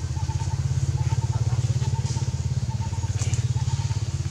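An engine running steadily, with a rapid, even low pulse.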